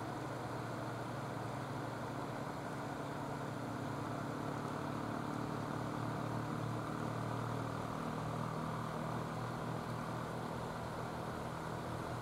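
A steady low engine hum over a constant noise wash, like a motor running, swelling slightly midway.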